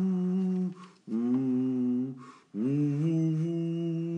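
A man humming with his mouth closed: three long held hums with short breaks between them, each on a different pitch.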